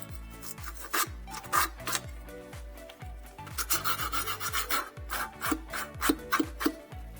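Rough rasping, scraping strokes, in a short run about a second in and a longer run from midway to near the end, over upbeat pop music with a steady kick-drum beat.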